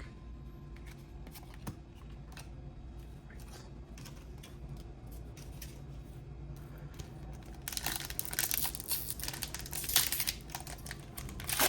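Faint handling of cards with light taps, then from about eight seconds in a foil Pokémon booster pack wrapper crinkling and tearing open, louder.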